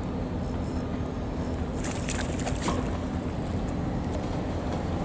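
Steady low rumble and hum of a boat engine in the harbour. About two seconds in there is a brief patch of splashing as the hooked black bream thrashes at the surface.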